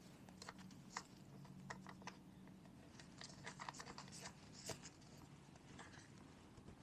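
Faint scattered clicks and light scrapes of small metal parts being handled at a wheel hub as a spacer and lock nut are threaded on by hand, with one slightly sharper click a little past halfway. A faint low hum sits underneath.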